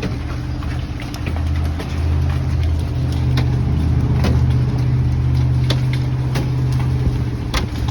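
Car's steady low hum from inside the cabin, growing stronger about a second and a half in. Hailstones strike the car with scattered sharp ticks, about six of them.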